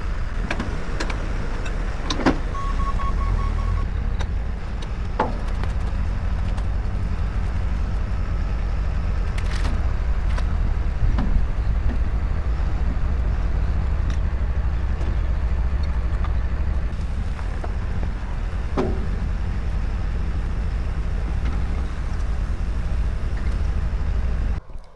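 Heavy construction equipment engine running steadily, with occasional sharp metallic knocks and a short run of quick beeps about three seconds in.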